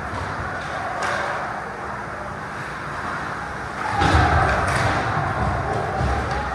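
Ice hockey play on an indoor rink: skates scraping the ice and sharp clacks of sticks and puck over a steady background, with a louder, deeper thud about four seconds in.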